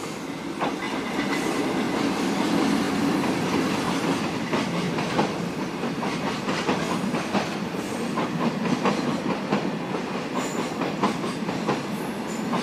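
Freight train of tank cars and container wagons rolling past, its wheels clacking rapidly over the rail joints over a steady rumble.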